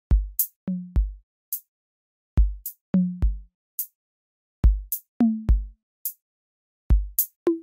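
Background music: a sparse drum-machine beat of deep kick drums, sharp high hits and short pitched drum notes that dip in pitch.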